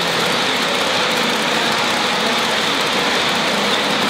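G scale model freight train of tank cars running past on a curve of track: a steady rolling noise of wheels on rail and the locomotive motors.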